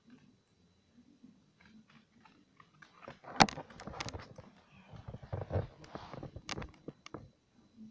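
A dog mouthing and chewing a rubber Kong toy right up against the microphone: a quiet start, then a string of close clicks, knocks and gnawing sounds from about three seconds in, the sharpest knock near its start, dying away shortly before the end.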